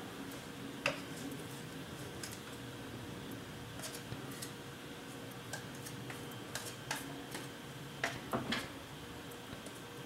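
Scattered light clicks and scrapes of a putty knife against a drywall patch piece as joint compound is spread on it, several in quick succession near the end, over a faint steady hum.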